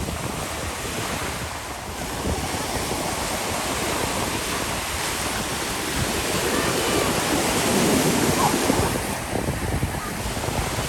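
Ocean surf washing onto the shore, with wind buffeting the microphone; the wash swells louder about three-quarters of the way through.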